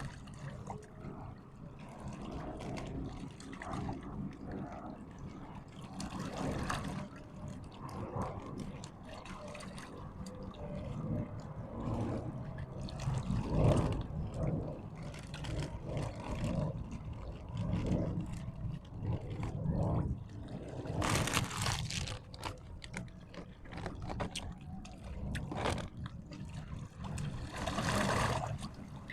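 Water sloshing and trickling unevenly, with two louder rushing bursts, one about two-thirds of the way through and one near the end.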